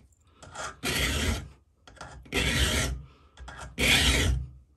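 Round file rasping across a steel chainsaw cutter tooth in three slow strokes about a second and a half apart, each begun by a short light scrape. The file is cutting back the gullet of a damaged cutter.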